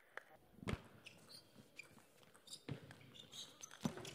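Table tennis rally: the ball knocking sharply off rackets and table, a string of clicks roughly a second apart, the loudest near the end.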